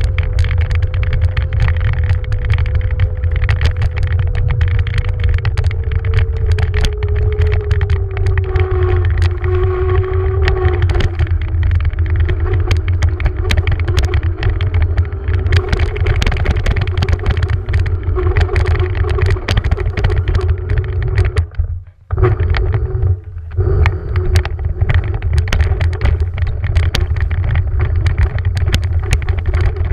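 Beaster BS11 electric scooter riding over sand: the motor's thin steady whine drops in pitch partway through as it slows, under heavy wind rumble on the camera microphone and a constant patter of clicks and rattles from the bumpy ride. The sound cuts out briefly twice a little over twenty seconds in.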